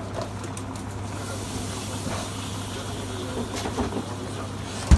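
Food sizzling in a hot pan: a steady hiss that sets in about a second in, over a low steady hum, with a few small clicks and one sharp knock near the end.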